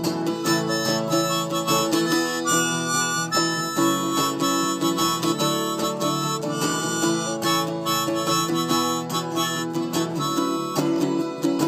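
Harmonica playing an instrumental break of held and changing melody notes over strummed acoustic guitar, with no singing.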